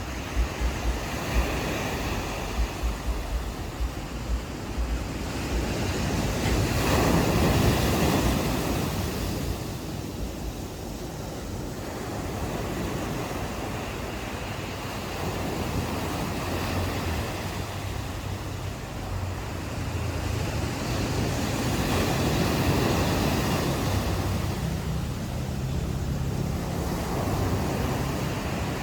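Ocean waves washing onto a beach, swelling into louder breaks about seven seconds in and again about twenty-two seconds in. Wind buffets the microphone in the first few seconds, and a low steady hum sits underneath in the second half.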